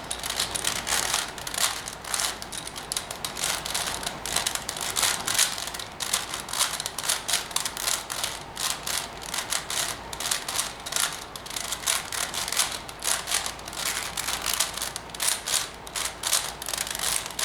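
4x4 Rubik's Revenge cube being turned by hand, its plastic layers clicking and clacking in quick, irregular twists as the last layer is solved.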